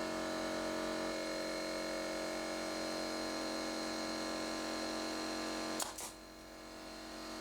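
Air compressor motor running steadily with an even hum, then cutting off about six seconds in with a couple of sharp clicks.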